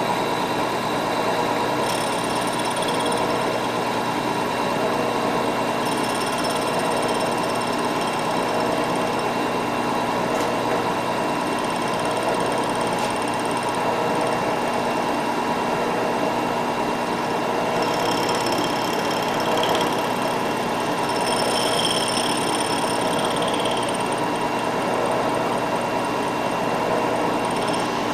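Milling machine running steadily with its cutter machining a small metal clip, a constant motor-and-spindle hum with high-pitched squeals that come and go as the cutter bites.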